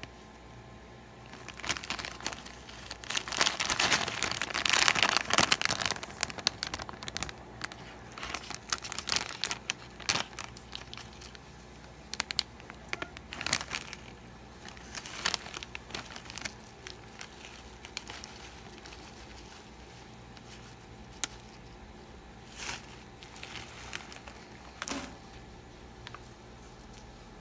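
Plastic snack bag of coated peanuts crinkling as it is handled and opened, densest a couple of seconds in, then thinning to scattered crackles.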